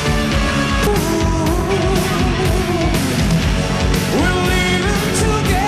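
Loud rock music with a steady, driving beat and a wavering lead melody line.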